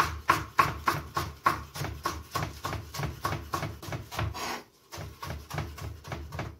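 Chef's knife rapidly slicing through pak choi and striking a wooden cutting board, about three chops a second, with a brief pause about five seconds in.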